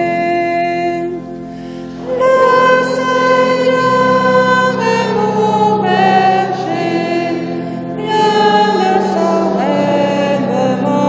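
A choir singing a slow, sung psalm in phrases of long held notes over a steady, sustained low accompaniment. There is a brief quieter lull just before two seconds in, and then the voices come in fuller.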